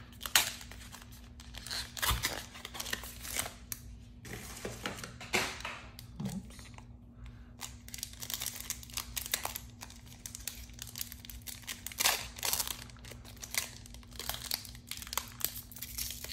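Pokémon TCG booster pack's foil wrapper being torn open and crinkled by hand, in irregular crackling bursts.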